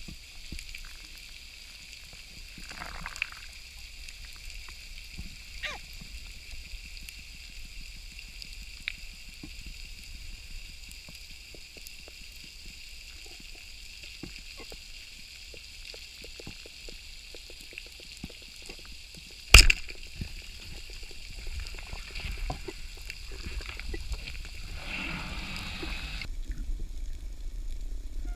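Underwater sound over a coral reef: faint scattered clicks over a steady hiss. About two-thirds of the way through, a speargun fires with a single loud, sharp crack, followed by a low rumble of water movement.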